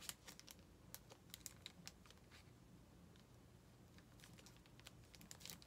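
Faint, scattered light clicks and crinkles of clear plastic sleeves on makeup brushes being handled, with a quieter stretch in the middle.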